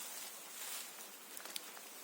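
Soft, steady hiss that is brightest in the first second, with a few light clicks or crunches about one and a half seconds in.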